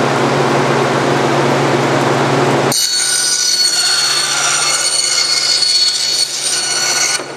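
Forrest Model 236 high-speed vertical bandsaw, with a 3/4-inch, 6-teeth-per-inch hook-tooth carbon-steel blade running at about 3,000 feet per minute, cutting through a bathtub composite of acrylic, wood and fiberglass. A steady hum gives way, about three seconds in, to a high-pitched ringing whine as the blade bites into the material. The whine cuts off abruptly near the end as the cut finishes.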